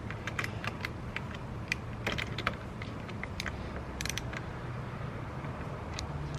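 Socket wrench clicking and metal clinking against a car battery terminal as the 12 mm terminal nut is worked loose: scattered, irregular small clicks, bunched about two seconds in and again about four seconds in, over a low steady hum.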